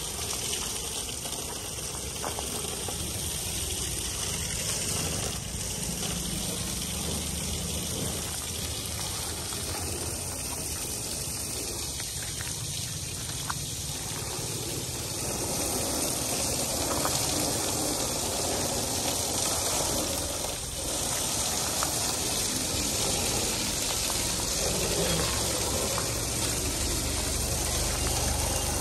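Water jet spraying steadily onto a vehicle as it is washed, a continuous hiss of spray that gets somewhat louder about halfway through.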